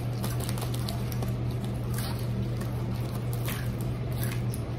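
A steady low hum with faint scattered crunches and rustles of a wafer being chewed and a snack wrapper being handled.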